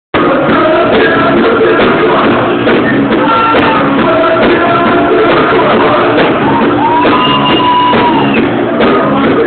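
Live electro-rock band playing loudly with a singer's voice over it, with a long held high note from about seven to eight seconds in.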